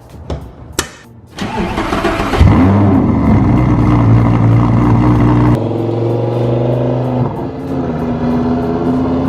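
Lamborghini Gallardo LP560's V10 engine being started: the starter cranks about a second and a half in, the engine catches with a loud flare of revs, then settles in two steps to a steady fast idle.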